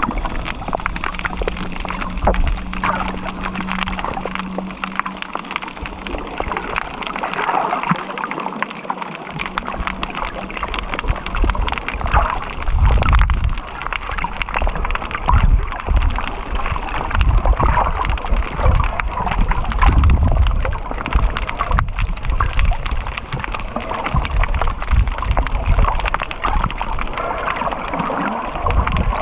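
Muffled underwater water noise from a camera held below the surface while snorkelling: gurgling and sloshing as it moves through the water. A low steady hum runs through about the first ten seconds.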